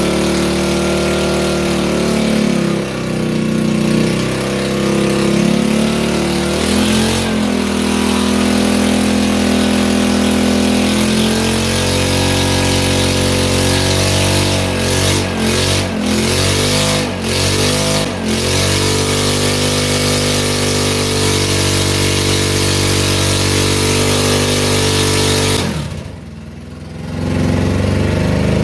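Mini bike engine running loud with no muffler, revved up and down during a burnout attempt, with a quick run of throttle blips around the middle. The engine note drops off sharply for about a second near the end, then picks back up.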